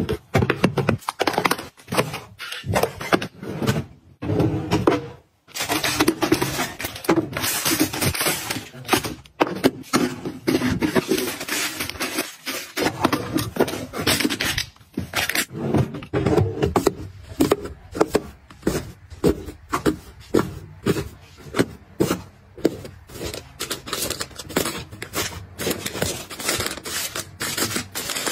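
Items being handled and set down one after another: a busy run of clicks, taps and knocks with scraping between them, the clicks coming quicker and more evenly over the second half.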